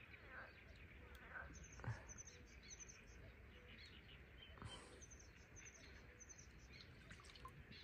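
Near silence outdoors, with faint high bird chirps repeating every half second or so and a soft knock about two seconds in.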